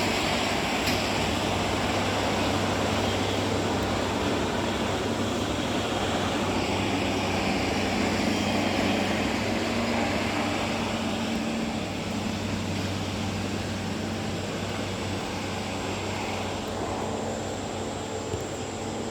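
Bulldozer's diesel engine running steadily with a deep, even drone, getting slightly quieter in the second half.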